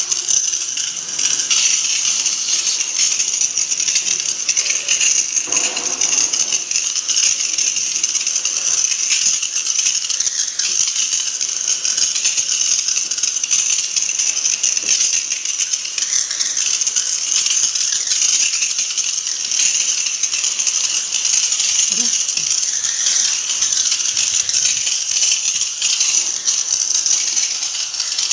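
Water jet from a spray hose hitting the metal fins and housing of a window-type air conditioner being washed, a steady loud hiss and patter.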